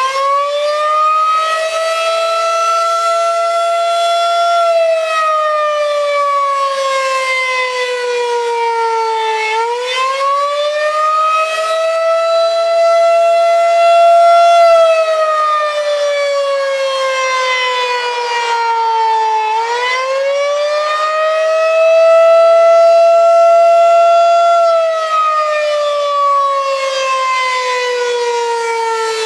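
Federal Signal 2001-130 electromechanical outdoor warning siren sounding during a test, a single tone whose pitch rises quickly, holds, then slowly sinks, over and over about every ten seconds.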